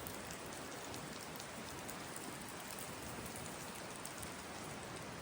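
Steady hiss of water outdoors, with many faint pattering ticks.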